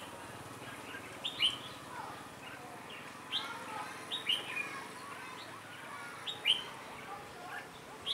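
Red-whiskered bulbul song: short, sharp chirps every second or so, with softer warbled notes between them.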